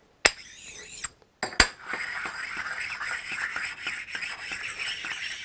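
A precision ground sharpening stone scraping steadily back and forth across a mill drill's table, stoning the tops off dings in the table surface. Two sharp clicks as the stone is handled come first, and the scraping sets in about two seconds in.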